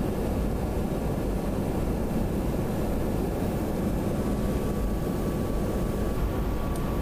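Steady low cabin drone of a NATO E-3A AWACS jet in flight, engine and air noise heard from inside the mission cabin, with a faint steady tone above the rumble.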